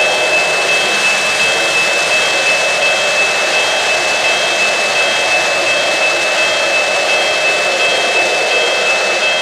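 Lionel O-gauge model trains running on three-rail track: a steady whir of motors and rolling wheels. Over it are a steady high whine and a high tone that pulses about twice a second.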